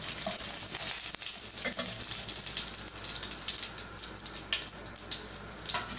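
Cumin seeds, curry leaves and fenugreek seeds sizzling in hot oil, a steady hiss with many small crackling pops as the whole spices splutter: the tempering stage, the oil hot enough for the seeds to crackle.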